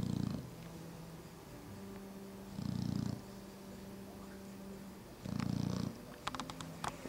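Mastiff puppy snoring in his sleep: three low, rattling snores about every two and a half seconds, with a quieter steady drone of breath between them. A few faint clicks near the end.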